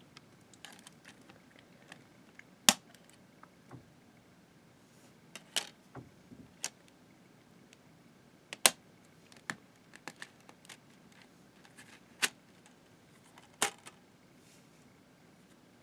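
DVD discs being handled and pried off the hub of a plastic disc case: about ten sharp plastic clicks and snaps, spaced irregularly.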